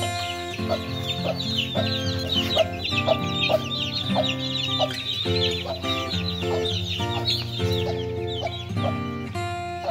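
A brood of chicks peeping rapidly and continuously, with a hen clucking among them, thinning out near the end. Acoustic guitar music plays underneath.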